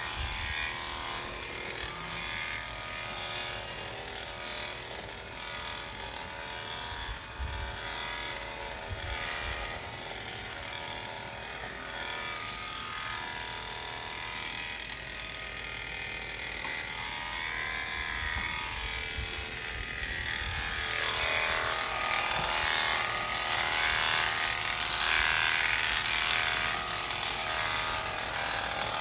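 Premier One electric sheep-shearing clippers running steadily. The sound grows louder and harsher about two-thirds of the way through.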